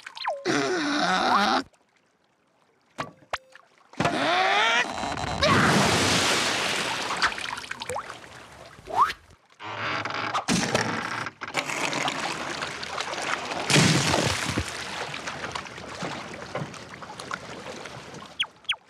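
Cartoon sound effects of a gondolier poling a gondola: a short strained vocal groan, then rising pitch glides, then long stretches of noisy sloshing with occasional knocks.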